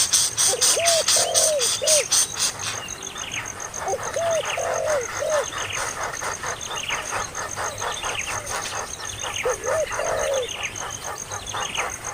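Birds calling: short runs of low, arching coo-like notes and a steady series of higher, falling chirps, with fast, regular clicking in the first few seconds and a steady high-pitched whine.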